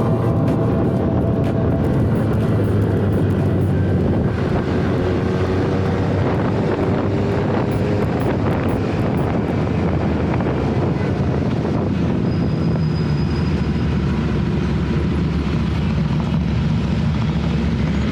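Motorcycle riding at a steady speed, its engine a constant low drone under heavy wind noise on the microphone.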